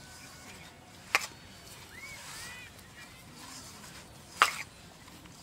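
Two sharp clicks about three seconds apart, from a steel plate as a mixture is worked in it by a hand wearing bangles.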